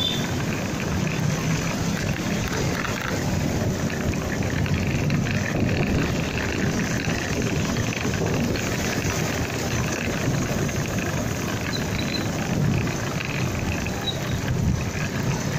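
A motorcycle underway: steady engine and road noise with a constant low rumble and no breaks.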